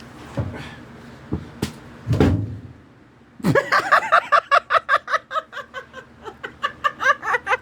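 A few light knocks and a loud, short low noise about two seconds in, then a man breaking into hard, fast giggling laughter.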